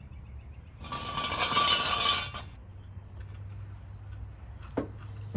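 Metal scraping and clinking as a floor jack is worked under the car, loudest for about a second and a half starting about a second in, with a ringing metallic note. A faint steady high tone follows, and a single sharp knock comes near the end.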